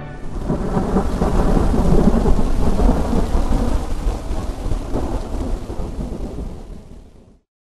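Thunderstorm on the soundtrack: steady rain with thunder, fading out near the end into silence.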